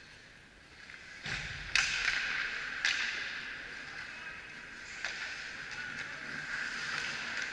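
Ice hockey play: skate blades scraping on the ice with a steady hiss, and a few sharp clacks of sticks and puck, the loudest about two seconds in.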